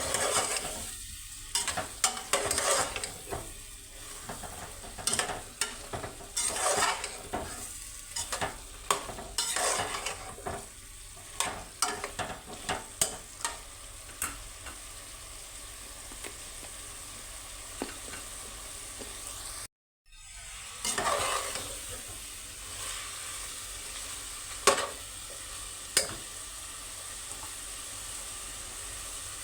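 Aloo gobhi (potatoes and cauliflower) sizzling in oil in a pan while being stirred. The spatula scrapes and knocks against the pan many times in the first half, then the sizzling goes on more steadily with only a few knocks after a brief break in the sound about twenty seconds in.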